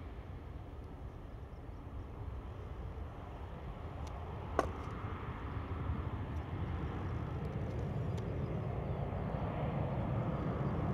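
Airbus A320-family jet airliner climbing out at takeoff thrust, a steady low rumble of engine noise that slowly grows louder. A single sharp click comes about four and a half seconds in.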